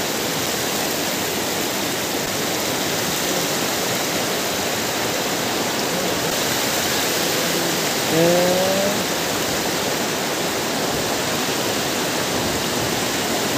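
Steady rush of fast-flowing floodwater, with a person's brief voice about eight seconds in.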